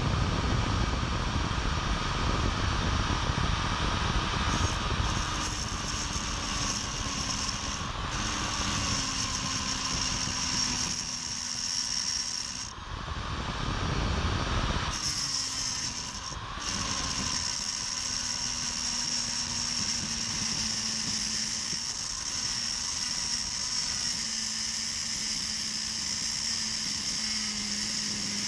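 Angle grinder with a cut-off wheel cutting into the steel shackle of a laminated padlock: a steady grinding noise over the motor's low hum, which sags and wavers under load. Near the middle the cut eases off for about two seconds before the wheel bites in again.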